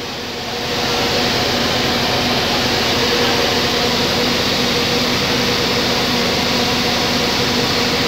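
Steady mechanical hum of a bus running, with a low drone; it grows louder just under a second in and then holds level.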